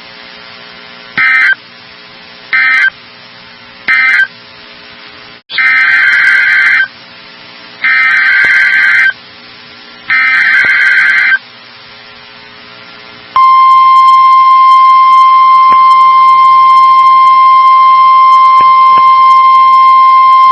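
Emergency Alert System data bursts: three short end-of-message bursts about a second apart, then three longer SAME header bursts starting the next alert. About two-thirds of the way through, the steady single-pitch NOAA Weather Radio warning alarm tone begins and holds. A steady electrical hum sits under the gaps between bursts.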